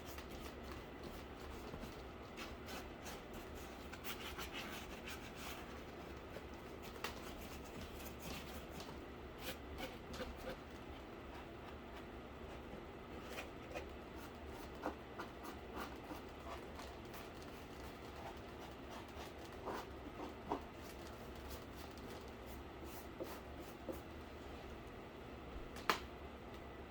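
Faint scraping of paint being worked onto a cardboard PC case, with scattered light clicks and taps from handling it. One sharper click comes near the end.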